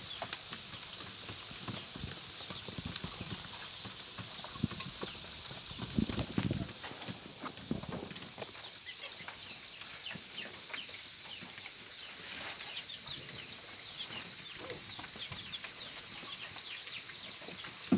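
A dense chorus of farmed crickets chirping together in a crowded breeding pen, one steady high-pitched trill. Many small clicks and rustles sound over it, thickening from about six seconds in.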